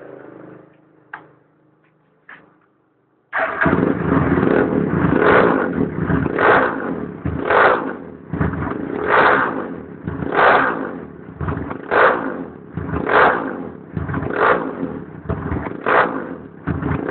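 Kawasaki KLX150 single-cylinder four-stroke engine breathing through a handmade Powerbomb aftermarket exhaust. It starts suddenly about three seconds in and is then revved in repeated throttle blips, about one every second or so.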